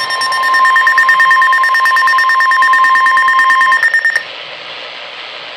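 Emergency Alert System attention tone: a loud, steady alarm tone that cuts off about four seconds in, leaving faint radio hiss before the warning message begins.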